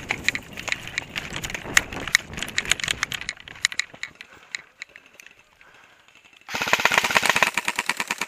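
Airsoft guns firing: scattered, rapid shots for the first few seconds, then, about six and a half seconds in, a long full-auto burst of fast, evenly spaced shots, the loudest part.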